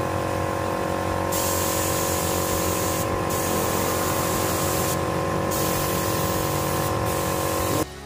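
Compressed-air gravity-feed spray gun spraying PU insulator primer onto wood: a loud steady hiss with a steady hum of several tones beneath. The high part of the hiss strengthens about a second in, drops out briefly three times as the trigger is eased between passes, and the spraying cuts off near the end.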